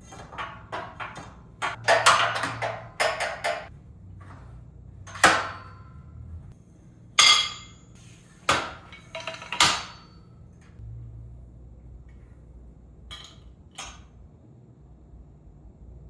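Steel weight-stack plates clinking and clanking as they are handled and set onto the stack: a quick run of clinks over the first few seconds, then four separate sharp clanks, and two faint knocks later on.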